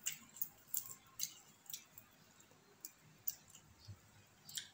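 A person chewing fresh herbs with the mouth open: irregular short, wet mouth clicks and lip smacks, about two a second.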